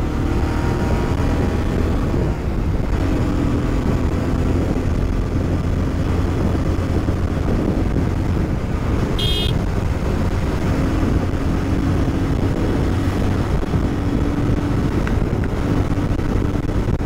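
Bajaj Pulsar 220F motorcycle's single-cylinder engine running at highway speed under wind and road noise, the bike gaining speed from about 70 to 90 km/h. A brief sharp high-pitched sound about nine seconds in.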